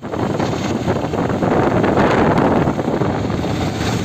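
Wind buffeting the microphone over the running noise of a moving road vehicle.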